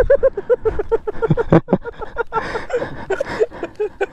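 Men's voices in quick, short bursts, with a couple of sharp clicks about a second and a half in.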